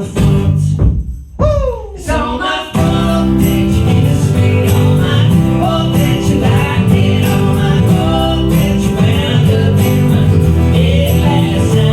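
Live band music: a sparse break in which a single sung line bends in pitch, then the full band comes back in about three seconds in and plays on steadily.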